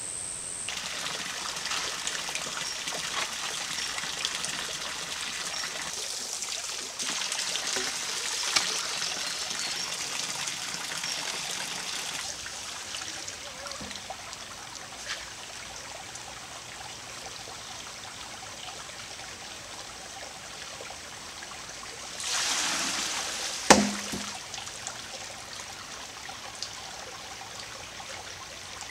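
A shallow rocky creek trickling steadily. About three-quarters of the way through, a short rush of water and then one sharp wooden knock, the primitive water-powered log hammer tipping and striking.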